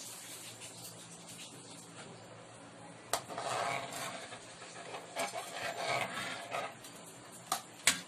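Metal ladle stirring and scraping around an aluminium wok of thin gravy, starting with a clink about three seconds in and running for about three and a half seconds, then a few light taps of the ladle on the pan near the end, over a low steady hum.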